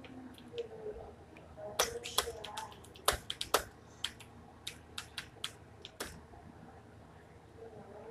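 Computer keyboard keys clicking irregularly as text is typed, in short runs with pauses between words.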